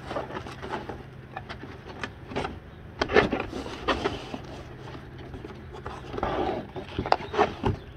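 Cardboard box and folded plastic sheet being handled: scattered rustling, scraping and sharp taps as the folded cover is settled into the box and the box is pressed down and its flap lifted.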